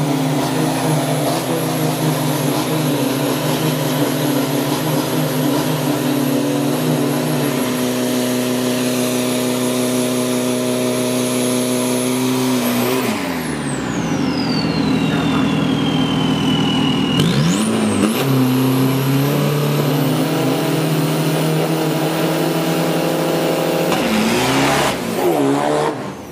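Isuzu D-Max turbo-diesel drag-race pickup engines running at steady high revs. About halfway through the sound breaks, with a high whine falling and then climbing again before the engines settle back to steady revs.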